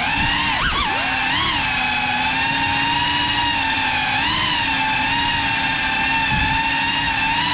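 GEPRC Cinelog 35 cinewhoop on 6S, its ducted propellers and brushless motors whining as it flies. The pitch dips and climbs quickly about a second in, surges slightly a couple of times later, and otherwise holds steady.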